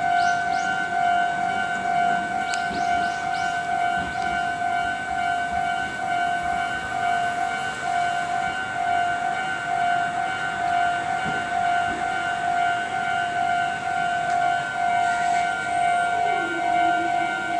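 Japanese railway level-crossing warning bell sounding continuously, an electronic ringing that repeats in even pulses, signalling that a train is approaching.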